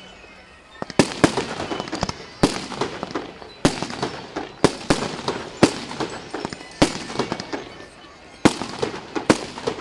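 Aerial firework shells bursting in a display: a string of sharp bangs, roughly one a second, starting about a second in, with crackling between them.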